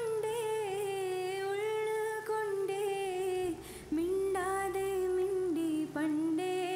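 A woman humming a slow, wordless melody in long held notes that slide between pitches, with a short break a little past the middle, over a soft low drone.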